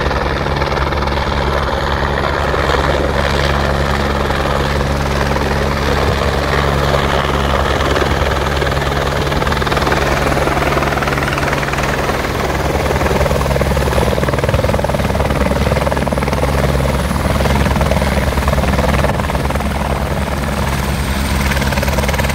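AS350 Écureuil-type single-engine helicopter's rotors and turbine running loud and steady as it descends, hovers low and sets down on its skids. The rotor beat sits under a dense rush of rotor noise, with a faint high turbine whine above it.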